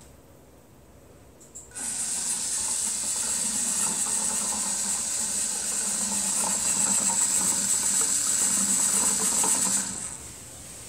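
Motorised 3D-printed rotating cat feeder running its rotation test, a steady mechanical hiss and rattle. It starts suddenly about two seconds in and cuts off shortly before the end.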